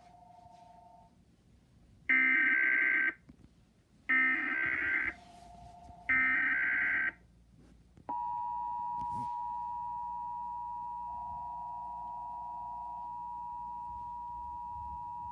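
Emergency Alert System alert tones: three raspy bursts of digital data (the SAME header), each about a second long and a second apart. About a second after the last burst, the steady two-tone EAS attention signal starts and holds.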